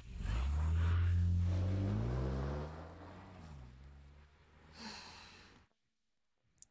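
An Audi saloon's engine pulling away, its pitch climbing as the car accelerates, then fading as it drives off. The sound cuts off abruptly about five and a half seconds in.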